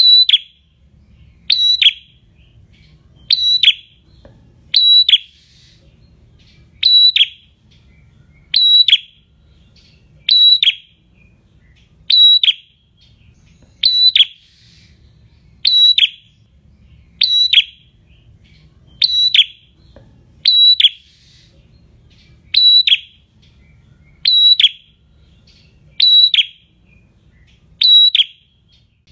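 Caged prenjak, a small rufous-crowned songbird, singing. It gives one loud, sharp, high call over and over, evenly spaced about every one and a half to two seconds.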